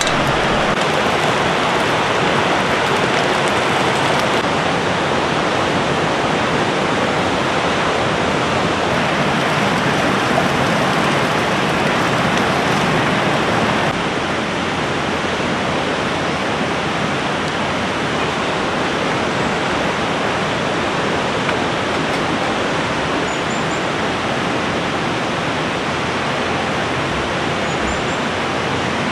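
Steady, dense rush of flowing water, with a slight drop in level about halfway through.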